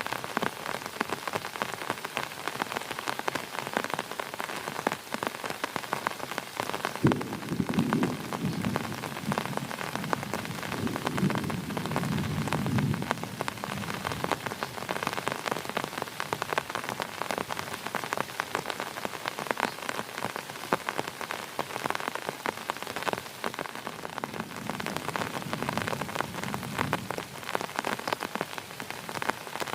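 Heavy rain falling steadily, a dense patter of drops. A low rumble swells and fades twice, once over several seconds from about a quarter of the way in and again shorter near the end.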